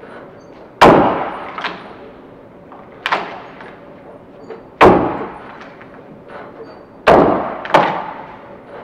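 Axe chopping into a log, cutting notches into its side: four sharp strikes a second or two apart, a couple followed by a lighter second hit, each echoing in a large hall.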